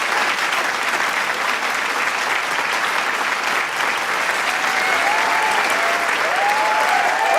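Large crowd applauding with dense, steady clapping; from about halfway, cheering voices rise out of the clapping and grow toward the end.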